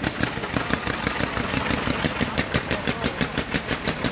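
Fireworks going off in a rapid, even series of sharp bangs, about six to seven a second, with no let-up.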